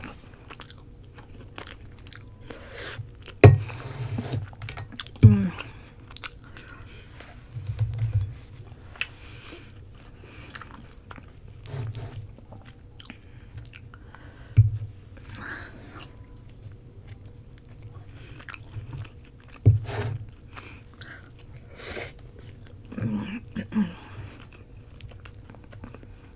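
Close-miked chewing and biting of roti, with soft wet mouth sounds. Several sharp clicks and knocks are scattered through it.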